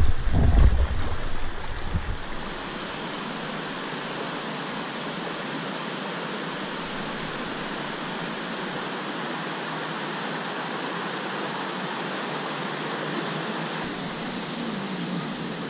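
Shallow river flowing over rocks: a steady rush of moving water. Loud low rumbling buffets near the microphone in the first two seconds.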